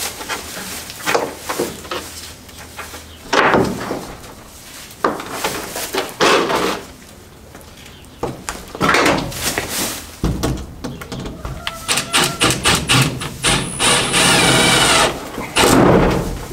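Carpentry work on a wooden doghouse: irregular knocks, bangs and scraping on wood, with a denser, steady stretch of noise about fourteen seconds in.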